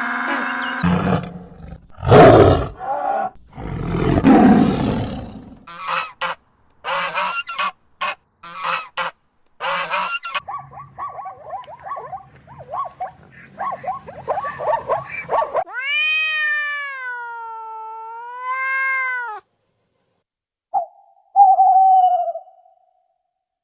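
A series of different animal calls, one after another. It opens with loud, rough calls, then a run of sharp clicks, and later a long pitched call that rises and falls.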